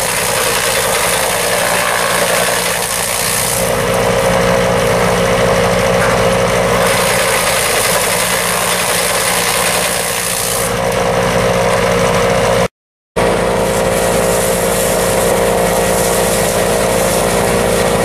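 A farm trash (chaff) cutter running with a steady mechanical hum and whirr. Twice a rougher hissing rush swells over it, as crop trash is fed in. The sound drops out for a moment about two-thirds through, then the hum carries on with a stronger whine.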